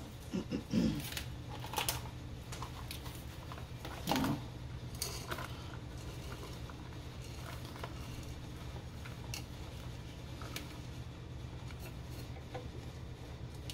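Light plastic clicks and taps as shredded Parmesan is put into a mini food chopper's plastic bowl and the top is fitted on, a handful of short knocks spread over a low steady hum. The chopper's motor is not running.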